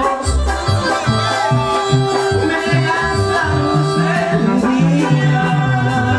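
Mexican ranchera-style dance music playing loud: a moving bass line and a steady rattling percussion beat under a sustained melody.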